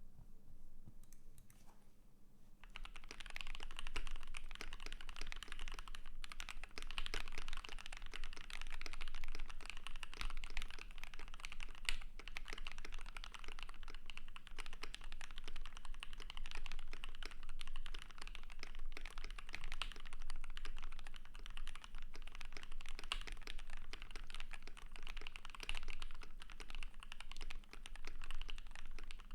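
Continuous fast typing on a KBD67 Lite R3 custom mechanical keyboard with lubed and filmed C3 Equalz Tangerine 67 g linear switches, a polycarbonate plate and PBT dye-sub keycaps: a dense, even patter of keystrokes that starts about three seconds in.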